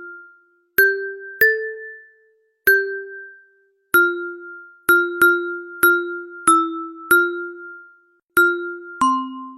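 A ringtone playing: a slow melody of single struck, bell-like notes, each starting sharply and dying away quickly, moving among a few nearby pitches, with a lower note near the end.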